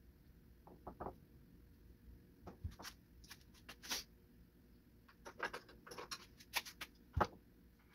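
Irregular light clicks and taps of a Craftsman 20-volt cordless chainsaw's plastic housing and small parts being handled as it is taken apart, with a sharper knock about seven seconds in.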